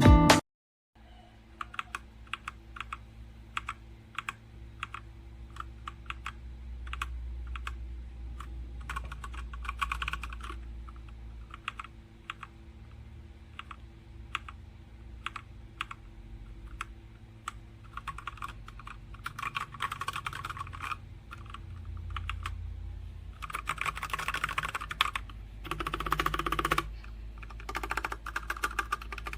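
Typing on a Machenike K500 mechanical keyboard: separate key clicks and clacks, with several bursts of fast typing, over a steady low hum.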